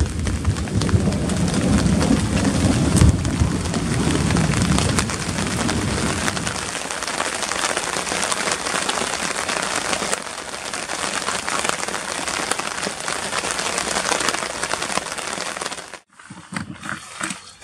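Steady rain pouring down during a thunderstorm, with a low rumble of thunder over the first six seconds or so. The sound cuts off suddenly near the end.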